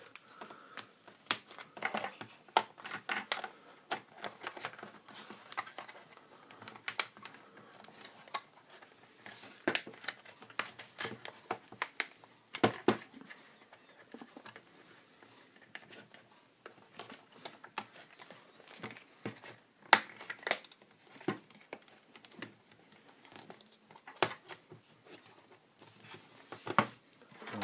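Hands handling a multimeter and its plastic case while a fuse is being changed: irregular small clicks, taps and rustles of plastic parts.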